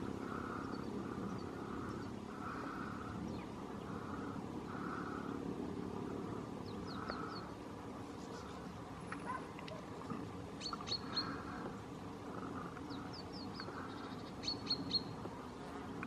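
European goldfinches calling: short bursts of three or four quick, high twittering notes, heard four times, loudest in the second half. Behind them, a softer sound pulses roughly once a second over a steady low outdoor hum.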